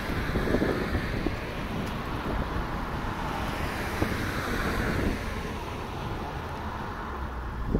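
Wind buffeting the microphone of a camera on a moving bicycle, over road traffic noise that swells and fades about halfway through as a vehicle goes by.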